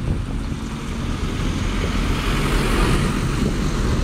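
A double-decker bus driving past close by: a steady low engine rumble with a broader rushing noise that swells to its loudest about three seconds in as the bus goes by.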